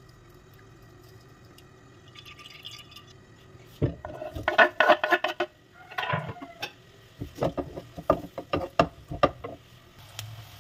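Kitchen cookware clatter: after a few quiet seconds, a burst of metal pots and pans knocking together. Then comes a run of sharp knocks and scrapes, about three a second, as a wooden spatula stirs sliced onions in an aluminium karahi.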